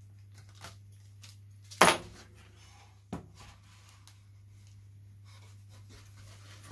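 Workbench handling sounds as covering film is worked onto a wing and a tool is picked up: one sharp knock about two seconds in, a smaller one about a second later and a few faint ticks, over a steady low hum.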